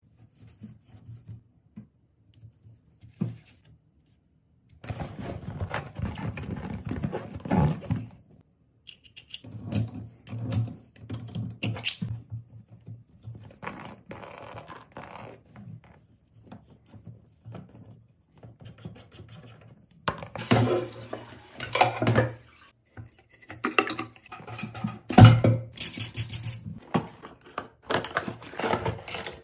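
Hands working on the plastic float-valve parts of a toilet cistern: bursts of scraping, clicking and knocking come and go, with the sharpest knock about 25 seconds in.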